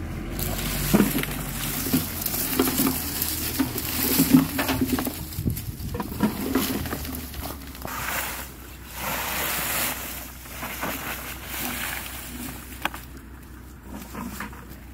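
Pecans and dry leaves being gathered by hand off a canvas catch tarp into a plastic bucket: rustling and crackling, with the nuts knocking and rolling against one another, busiest in the first half and thinning out toward the end. A low steady hum runs underneath.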